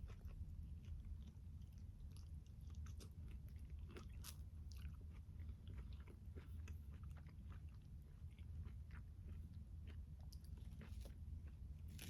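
Close-up chewing of a tomato, peach and basil salad: a run of soft, irregular wet clicks and crunches, with a louder bite about four seconds in, over a low steady hum.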